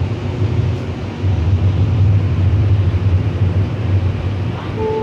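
Siemens SD160 light rail car heard from inside while running: a loud, steady low rumble. A brief steady tone comes in near the end.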